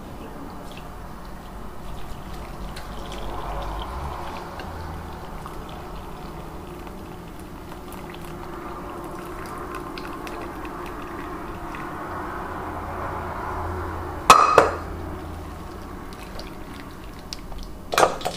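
Boiled red cabbage water poured from a pot through a strainer into a bowl: steady running and splashing liquid. Two short loud knocks break in, one about fourteen seconds in and one near the end.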